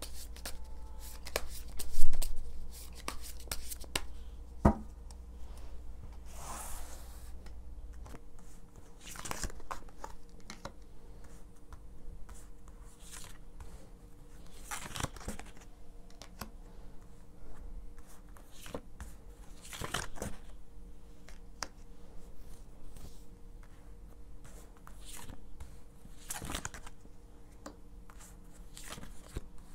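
Tarot cards handled by hand: the deck shuffled, then spread out and single cards slid out and laid down, a string of irregular crisp card swishes and snaps, the sharpest about two seconds in.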